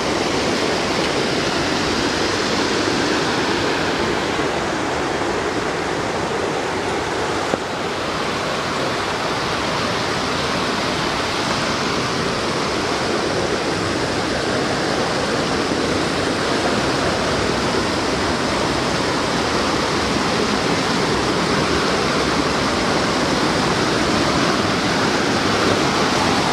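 Fast mountain creek rushing over rocks: a steady, loud, unbroken rush of water.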